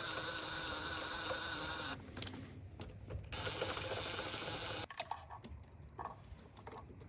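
A small cordless power tool running down the throttle body's 13 mm bolts in two runs: one of about two seconds and one of about a second and a half. Light clicks and handling noises follow.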